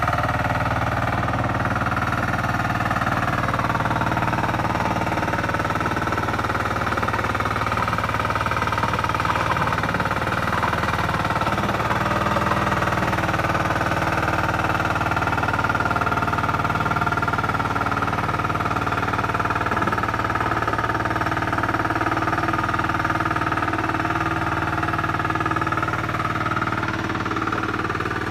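Super Kama 14 hp engine on a Boyeth turtle mud boat running steadily under load as it drives the boat through deep mud.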